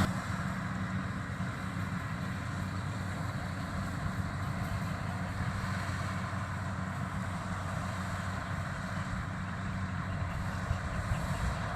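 Kubota DC-70 combine harvester running steadily, an even machine drone with a low hum.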